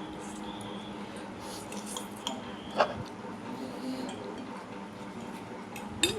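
Cutlery clinking against a plate or bowl now and then, the sharpest clink about three seconds in, over a steady low hum.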